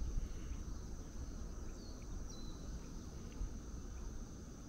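Faint, steady high-pitched chorus of insects over a low rumble, with a short bird call about two seconds in.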